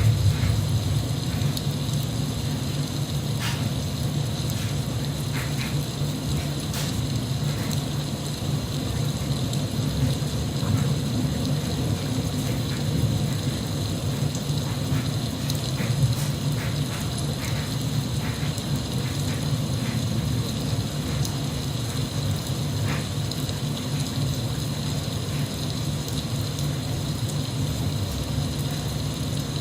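Steady rain, a constant rushing hiss with a low rumble beneath, and scattered sharper drop ticks.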